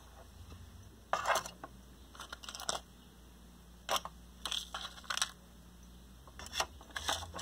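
Thin clear plastic packaging clicking and crackling in scattered short bursts as it is handled, with small taps as a rock specimen is set on a clear plastic base.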